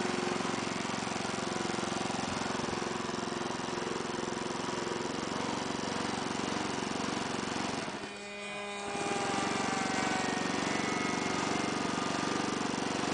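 Handheld electric starter whirring as it cranks the engine of a large radio-controlled Ju 87 Stuka model airplane, with the engine not catching. It lets off for about a second some eight seconds in, then cranks again and stops near the end.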